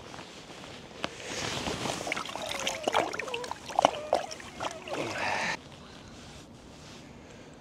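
Water splashing and handling noises at the water's edge, with a few short squeaky glides, as a freshly caught bream is dealt with. The noise cuts off suddenly about five and a half seconds in, leaving a faint steady outdoor hiss.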